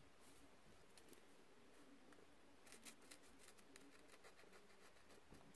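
Faint snips of scissors cutting a hole in paper, a small cluster of them about three seconds in and a few more near the end, over near-silent room tone.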